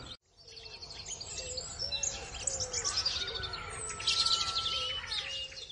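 Many small birds chirping and singing together, a dense chorus of short, high, rapidly repeated calls and trills.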